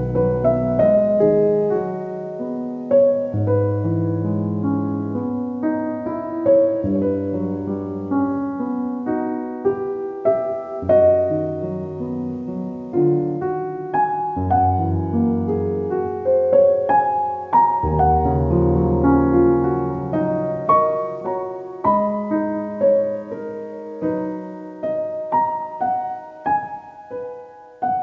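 Background piano music: a slow melody of single notes over held low bass notes.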